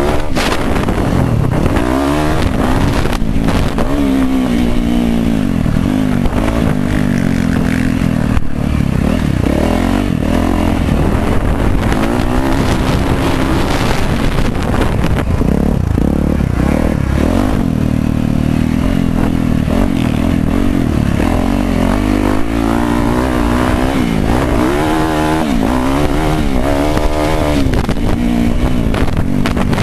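Yamaha YZ450F's four-stroke single-cylinder engine revving up and down repeatedly as the dirt bike is ridden hard round a motocross track, rising and falling with each climb, jump and turn.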